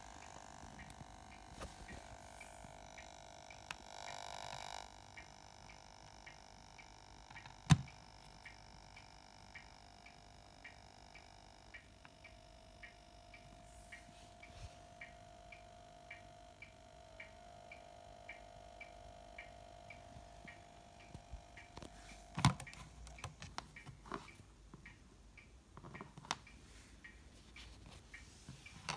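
Steady low electrical hum with a high thin whine that steps in pitch partway through, and faint regular ticking about twice a second. A sharp click comes about eight seconds in, and another near the end is followed by rattling as the TV's cable plug is handled and pulled out.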